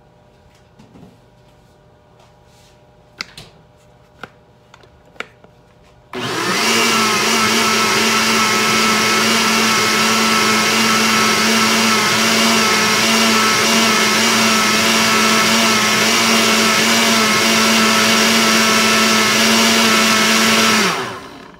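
A few faint clicks, then about six seconds in a glass-jar countertop blender starts and runs at one steady speed, puréeing fruit into a thick smoothie, with a constant hum under the whirring. It shuts off near the end.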